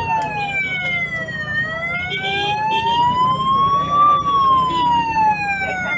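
Colombian police car siren on a slow wail: the pitch falls for about a second and a half, climbs for about two and a half seconds, then falls again near the end.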